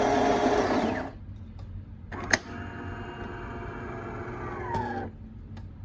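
DeLonghi Magnifica ESAM3300's built-in coffee grinder running and cutting off about a second in. After a click, a smaller motor inside the machine whirs steadily for about three seconds, dropping in pitch as it stops, as the machine moves on from grinding toward brewing.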